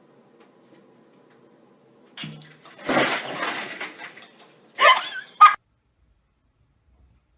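A crash with a clatter about three seconds in, like something knocked over and breaking, followed by two short, loud, sharp sounds; it all cuts off suddenly.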